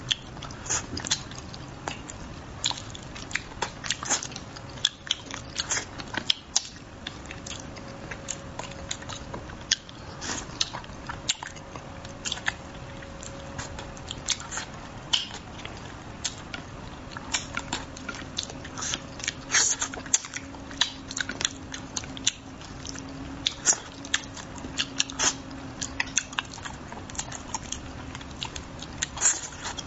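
A man eating braised fish: wet chewing, lip smacks and frequent sharp mouth clicks in an irregular run, with no talking.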